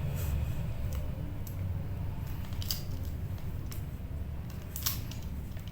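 Crimping tool squeezing an RJ45 connector onto a Cat6 network cable: several short sharp clicks from the tool, about a second apart, over a steady low hum.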